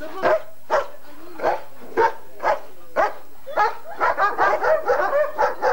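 German shepherd dogs barking repeatedly, about two barks a second at first, then a quicker run of barks from about four seconds in.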